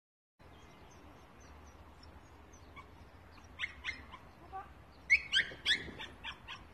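Young dog giving short, sharp high-pitched yips in quick clusters, about three and a half seconds in and again, loudest, about five seconds in. Faint bird chirps in the first two seconds.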